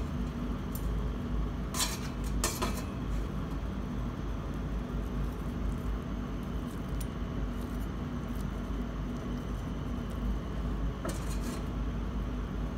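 A few short clinks of a serving utensil against a cooking pot, a pair about two seconds in and another near the end, over a steady low hum.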